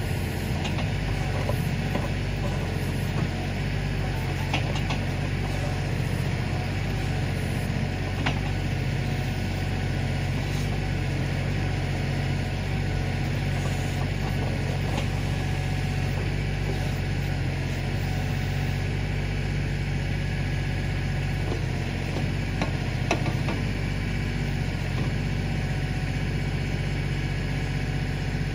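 Kioti DK4510 tractor's diesel engine running at a steady speed, with a few short sharp clicks and knocks over it.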